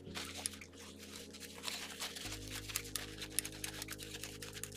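Paper towel rustling and crinkling as a wet model locomotive shell is dabbed dry and handled, with many small light clicks and taps.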